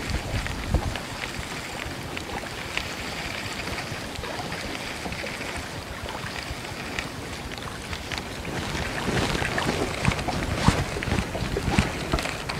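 Wind buffeting the microphone over water lapping around a small fishing boat, with scattered light clicks and splashes that grow busier in the last few seconds.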